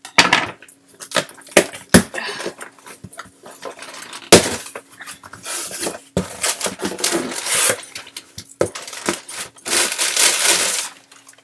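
Paper and cardboard rustling and crinkling as a shipping box of cosmetics is unpacked by hand: irregular crackles with a couple of sharper knocks.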